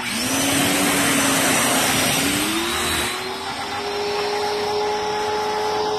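Pressure washer running, its spray hiss dropping away about three seconds in while the motor's whine rises in pitch and then holds steady: the washer is losing water pressure, which the user puts down to a tangled supply hose.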